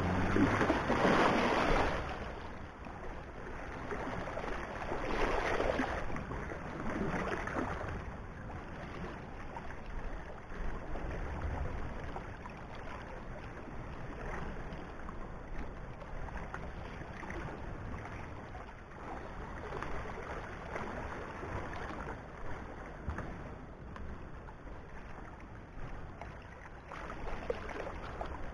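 Small sea waves washing and lapping against the stones of a rock breakwater. The sound swells and fades every few seconds and is loudest at the start, over a low, steady rumble.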